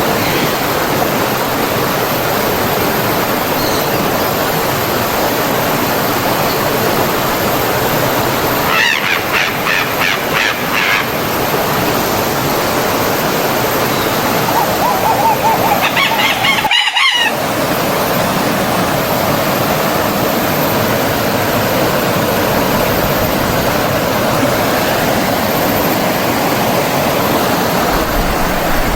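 Steady rush of a flowing stream. Bird calls break through twice, about nine seconds in and again about fifteen seconds in, and the sound cuts out for a split second just after the second call.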